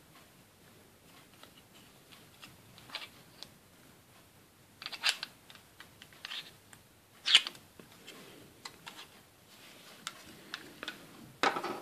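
Small hard-plastic Playmobil desk parts handled in the fingers, the tabletop lifted off and pressed back on, giving scattered light clicks and rattles, a few sharper ones near the middle.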